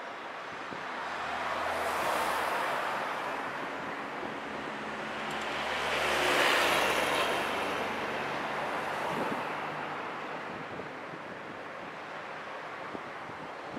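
Road traffic passing over a bridge: tyre rush and engine hum from a vehicle swelling about two seconds in, then a box truck passing close about six seconds in, the loudest moment, before the traffic noise eases off.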